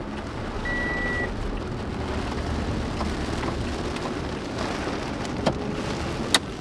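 Heavy rain drumming on a moving vehicle over a low road and engine rumble. A short high beep sounds about a second in, and a sharp knock comes near the end.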